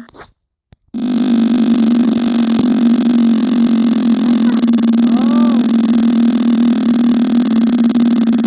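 Steady electronic whirring hum of a fidget-spinner app spinning the drawn spinner, with a strong low drone. It switches on suddenly about a second in at full loudness.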